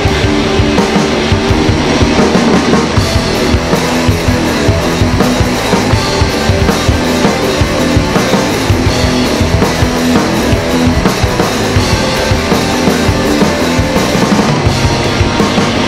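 Indie rock band recording playing an instrumental passage without vocals: electric guitar over a steadily hit drum kit.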